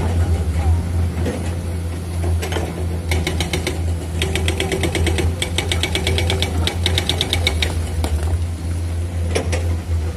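Diesel engine of a Komatsu PC210-10MO hydraulic excavator running steadily under load as the bucket digs and curls through broken rock. A fast, even clicking rattle comes in about three seconds in and stops near eight seconds, while the loaded bucket comes up out of the rock.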